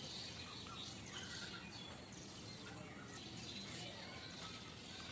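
Faint scratching of a pen writing and drawing on paper in short strokes, over low background noise with faint chirping.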